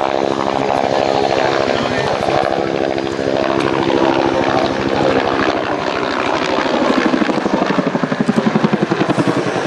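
Bell AH-1 Cobra helicopter flying by, its turbine and two-bladed main rotor giving a steady hum of several tones. In the last few seconds, as it pulls up steeply, this turns into a loud, rapid, pulsing blade slap.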